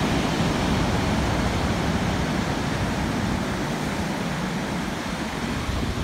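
Rough sea surf, large waves breaking and washing up the beach in a steady rushing noise that is heaviest in the low end.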